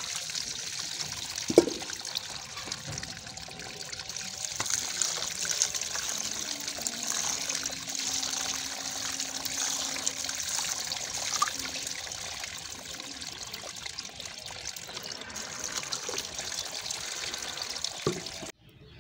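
Cold water poured in a steady stream onto boiled moringa flowers in a perforated steel colander, cooling the flowers after boiling. A single sharp knock comes about a second and a half in, and the pouring stops just before the end.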